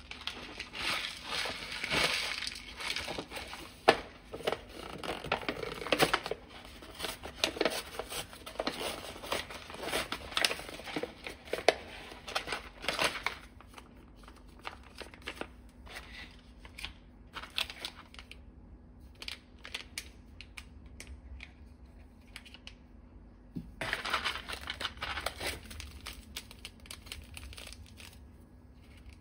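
Foil-lined paper lid of an instant-noodle cup being peeled back and foil sauce and seasoning sachets being handled, crinkling and crackling. The crinkling is dense for the first half, thins to scattered crackles, and comes back in a short burst a little before the end.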